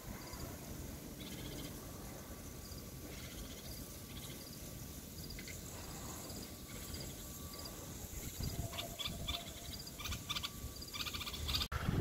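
Caged common bulbul calling in short, high chirping phrases, sparse at first and coming quickly one after another from about nine seconds in, faint over a low background rumble. This is the bulbul's call used as a decoy to draw other birds closer.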